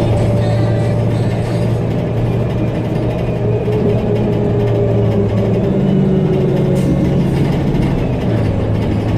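Blue Bird All American rear-engine bus running under way, its Cummins Westport ISL-G natural-gas engine giving a steady low drone with faint whining tones that drift slightly in pitch.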